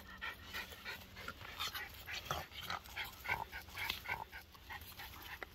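A dog whimpering in a quick run of short, faint whines.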